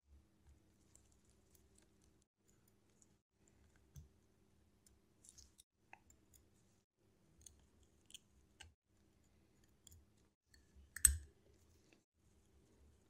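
Faint, irregular clicks and taps of a watchmaker's screwdriver and tweezers working on the parts of a Seiko 7S36 automatic movement during disassembly, with one louder knock about eleven seconds in.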